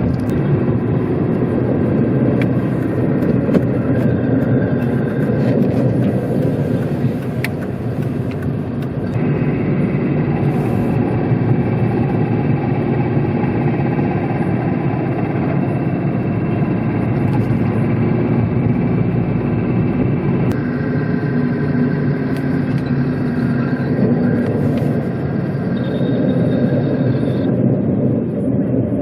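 Second-generation Fiat Panda 4x4 driving, with running and road noise under faint steady whining tones that shift about 9 and 20 seconds in. These abnormal drivetrain noises are suspected to come from the propshaft centre bearing.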